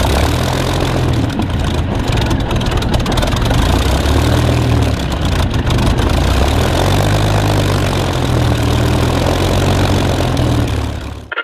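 A piston engine idling steadily at low revs, its low note wavering slightly. It cuts off abruptly near the end.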